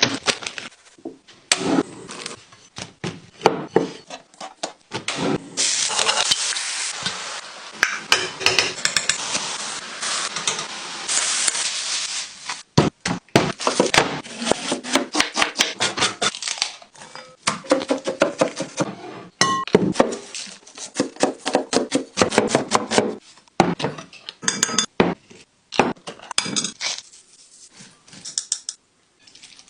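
Kitchen food-prep sounds: quick runs of knife strikes on a wooden cutting board, mixed with clinks and knocks of utensils and dishes. A steady hiss fills several seconds in the first half.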